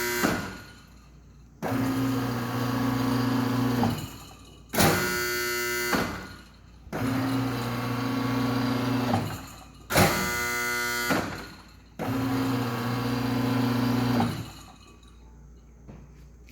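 Nurungji (scorched-rice cake) machine running through its repeating cycle: a motor hums steadily for about two seconds, then a shorter, harsher whirr starts sharply, and the pattern repeats about every five seconds, three motor runs in all.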